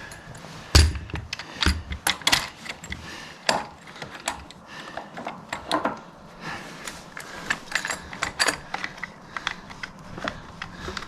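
Irregular metallic clicks and clacks of a hand clamp tool being worked on hydraulic quick-connect couplers, with two heavier knocks early in.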